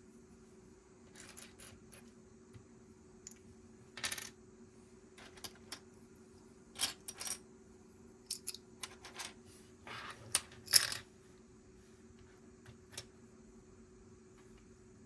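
Plastic Lego pieces clicking and clattering as they are handled and snapped together: an irregular scatter of sharp clicks, with small rattling clusters.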